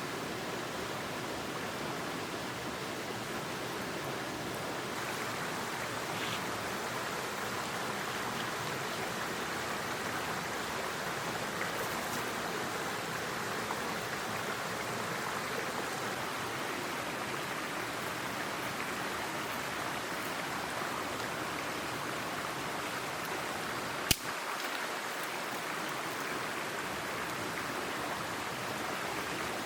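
Mountain headwater stream flowing steadily over rocks, an even rushing of water. A single sharp click sounds once, late on.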